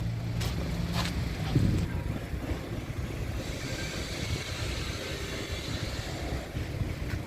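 A motor vehicle running steadily with a low rumble, with a few light clicks early and a hiss that rises and fades away in the middle.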